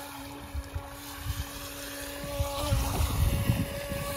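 Battery-powered HONGXUNJIE RC speedboat's electric motor whining at a steady pitch out on the water, with wind rumbling on the microphone, stronger in the second half.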